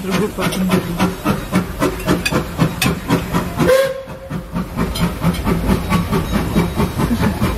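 Puffing Billy's narrow-gauge steam locomotive 8A passing close by, its exhaust chuffing in an even rhythm of about four to five beats a second. A short steam whistle note sounds a little before halfway, rising then holding briefly.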